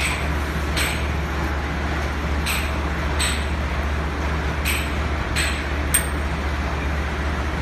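Steady low hum of workshop machinery, with about seven sharp metallic clinks at irregular intervals as steel mould parts and tools knock together, the loudest about six seconds in.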